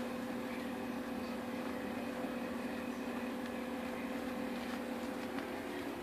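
Steady low mechanical hum with a constant low drone underneath.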